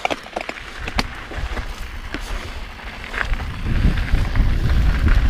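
Mountain bike riding fast down a dry dirt trail: sharp clicks and rattles of the bike over bumps, and wind rumble on the microphone that grows louder as speed builds, from about three and a half seconds in.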